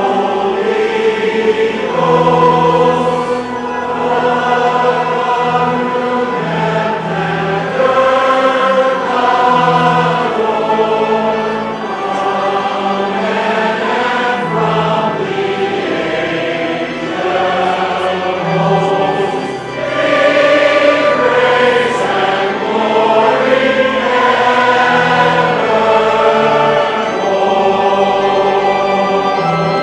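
Choir singing in slow, held chords, with church reverberation.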